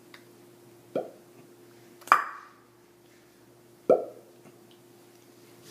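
Three short popping sounds made with the lips, spaced one to two seconds apart; the second one is sharper and higher than the other two.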